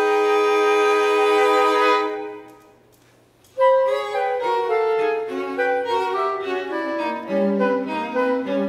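Contemporary chamber quartet of flute, clarinet, violin and cello holding a sustained chord that fades away about two seconds in. After a second of near silence the ensemble comes back in with a sudden loud attack and fast, busy overlapping notes.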